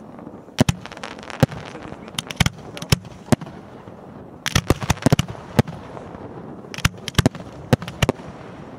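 Aerial fireworks going off: a string of sharp bangs at uneven intervals, with quick clusters of reports about four and a half seconds in and again near the end.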